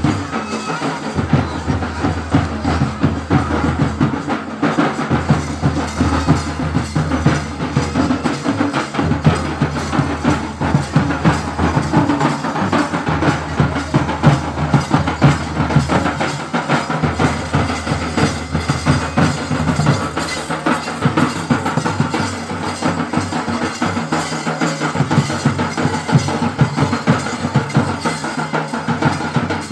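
Drum-led music with a steady, driving beat, continuous and evenly loud.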